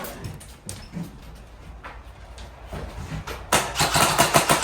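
Airsoft gunfire: a few single clicking shots, then a sudden rapid burst of clicks at about ten a second from about three and a half seconds in, typical of an electric airsoft gun firing on full auto.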